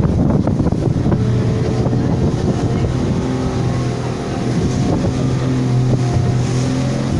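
Motorboat engine running with a steady low hum, with wind buffeting the microphone.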